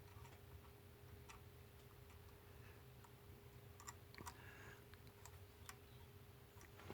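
Faint, scattered clicks of small parts being handled while the choke linkage is connected to a chainsaw carburettor, over a low steady hum.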